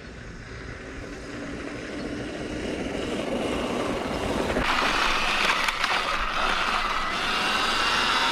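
Sur-Ron X electric dirt bike riding a dirt trail: the motor and chain whine over tyre and wind noise, growing steadily louder as it picks up speed.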